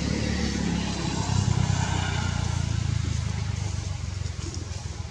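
A motor vehicle engine running, loudest about a second and a half in and fading toward the end.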